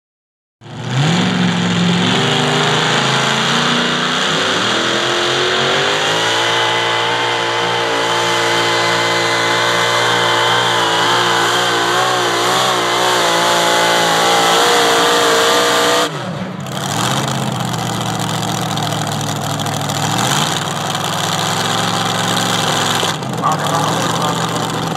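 Supercharged engine of a Pro Modified pulling tractor running flat out under load through a pull. Its pitch climbs over the first few seconds, then holds high and wavers. About sixteen seconds in it drops sharply to a lower, steadier running note, with a couple of brief revs near the end.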